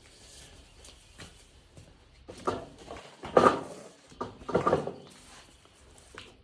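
Handling noises while an air chuck is readied for a dirt bike inner tube's valve stem: a few faint clicks, then three short scuffing knocks about a second apart in the second half.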